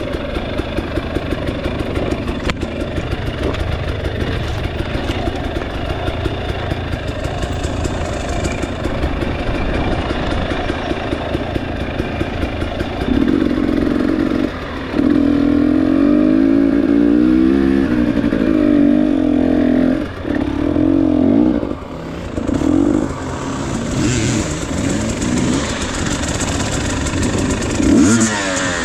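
Dirt bike engine under way on a rough trail, running steadily at first. From about halfway it gets louder, with the throttle opened and closed over and over so the pitch rises and falls, and a quick rising rev comes near the end.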